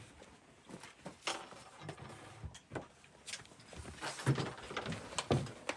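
Scattered light knocks and clatter of tableware and stools being handled at a dinner table.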